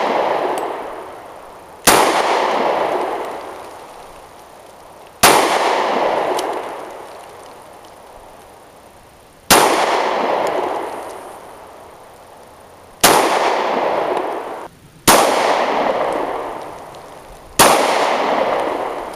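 Six single gunshots fired slowly at plate targets, spaced two to four seconds apart, each trailing off in a long echo.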